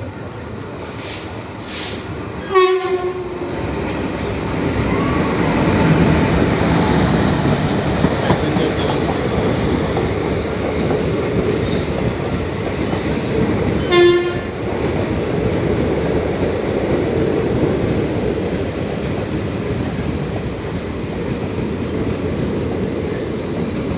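Passenger train pulling into a station: a steady rumble and clatter of wheels and carriages that builds over the first few seconds, with two short horn blasts, one about three seconds in and another about halfway through.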